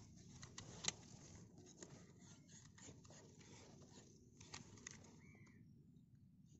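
Near silence: faint background hiss with a few soft clicks, a louder one about a second in and two more around four and a half seconds. There is also a short high chirp a little after five seconds.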